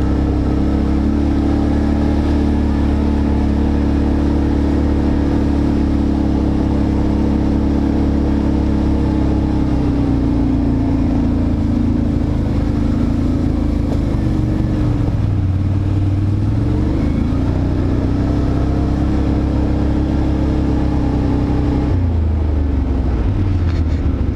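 ATV engine running steadily under way on a rough dirt trail, its pitch dipping and rising again a few times as the throttle eases off and opens, around the middle and again near the end.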